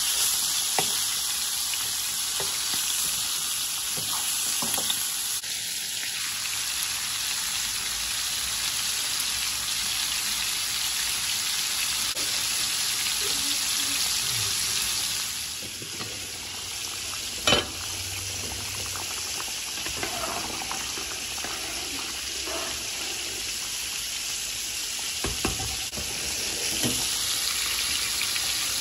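Turmeric-and-chilli-coated fish pieces and fish head frying in oil in a non-stick pan: a steady sizzle, with a few short knocks, the sharpest about seventeen seconds in.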